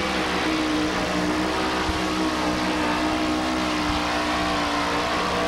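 Supercharged Arias engine of a two-wheel-drive super modified pulling truck running flat out at steady, high revs under load as it drags the weight-transfer sled.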